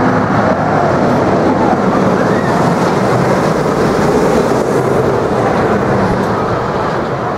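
Narrow-gauge steam train running, heard as a steady, loud rumble of the train and its cars.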